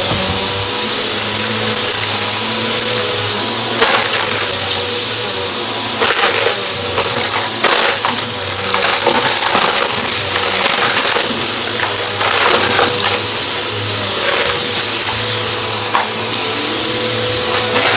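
Vacuum cleaner running steadily with a loud hiss and hum, with irregular crackles as crunchy debris is sucked up.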